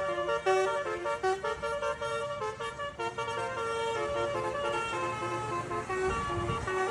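Bus telolet horn, a set of tuned air horns playing a fast stepping tune of short notes. A low rumble swells briefly near the end.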